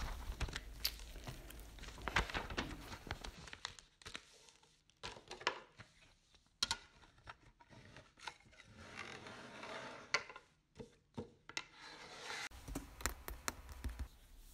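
Close handling noise: rustling and crinkling broken by many sharp clicks and taps, with a low rumble at the start and again near the end.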